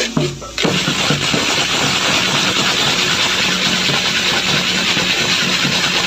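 Dongkrek gamelan music in which the korek, a wooden ratchet rattle, rattles rapidly and without a break from about half a second in, over recurring low gong-like tones.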